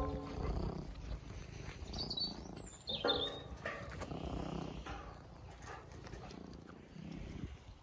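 Domestic cat purring close to the microphone as it sits on a person's shoulder: a low rumble that comes in slow pulses.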